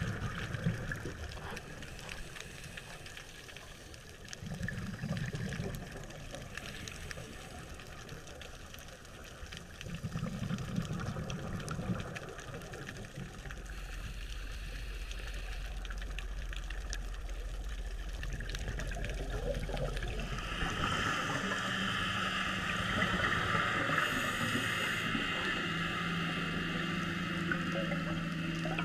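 Scuba diver's exhaled bubbles from a regulator, heard underwater through the camera housing, coming in bursts every five or six seconds. A low steady hum sets in about halfway through, and about two-thirds of the way in a louder steady hiss joins it.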